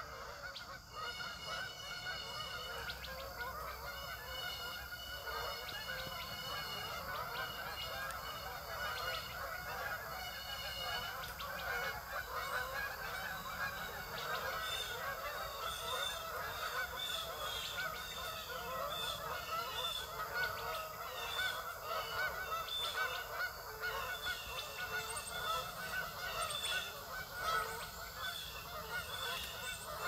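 A dense flock of waterfowl calling continuously, many short calls overlapping into an unbroken chatter.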